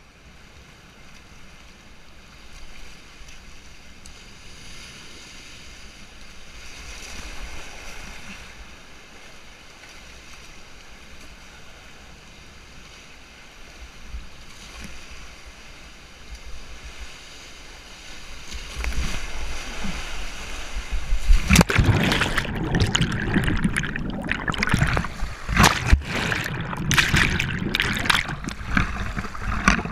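Rushing whitewater of a river rapid, heard from a kayak-mounted GoPro. About two-thirds of the way in it grows louder, and near the end a dense run of sharp splashes and slaps of water hits the camera as the kayak runs through rougher water.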